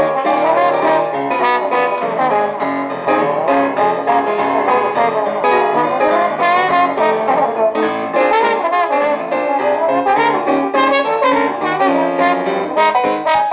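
Traditional jazz band playing a lively ensemble passage, the trombone and cornet to the fore over piano, sousaphone and drums with regular cymbal strokes.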